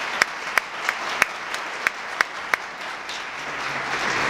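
Audience applauding, with a few individual claps standing out sharply close by.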